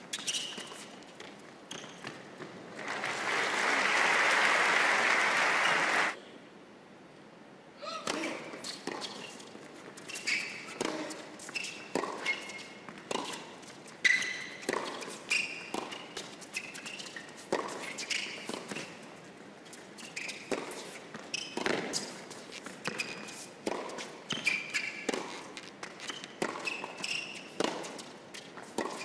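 Crowd applause for a few seconds, then a long indoor hard-court tennis rally: racket strikes on the ball, ball bounces and shoe squeaks on the court, one every half second to a second.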